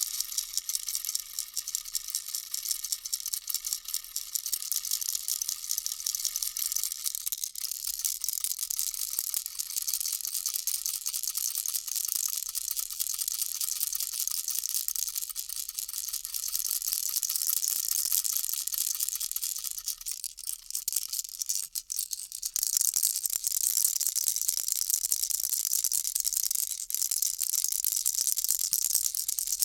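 A baby rattle shaken continuously: a dense, rapid rattling of small pieces inside the toy, with a faint ringing tone underneath for the first twenty seconds or so. The rattling dips briefly about twenty-one seconds in, then goes on a little louder.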